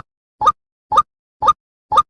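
A short plopping blip that glides slightly upward, repeated with machine-like regularity about twice a second, each one identical, with dead silence between: a looped sound effect.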